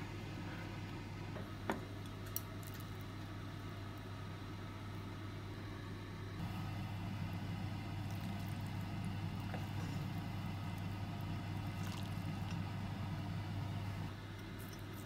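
Induction hob humming steadily under a saucepan of broth, the hum stepping up about six seconds in. A ladle stirs the liquid and knocks twice against the pan near the start, and broth splashes as it is ladled.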